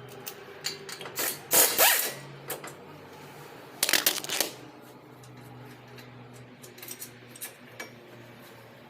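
Mechanic's tools working on metal car parts: two short bursts of rapid clicking, about a second and a half in and again about four seconds in, with scattered light metal clinks between them.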